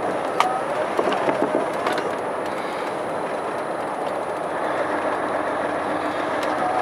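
Steady engine and road noise inside a truck's cab while driving, with a few sharp clicks and rattles in the first two seconds.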